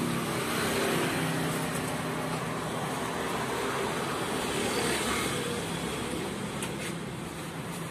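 Steady road traffic noise, with a low engine hum early on and a few light clicks near the end.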